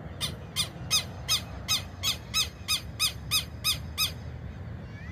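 Southern lapwing calling: a rapid series of about a dozen sharp, strident notes, about three a second, stopping about four seconds in.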